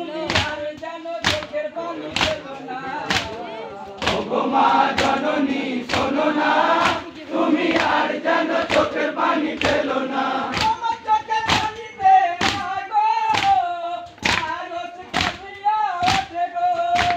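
A crowd of men singing a Muharram matam lament (jari) together, with sharp chest-beating slaps in a steady rhythm about once a second. The singing grows louder a few seconds in.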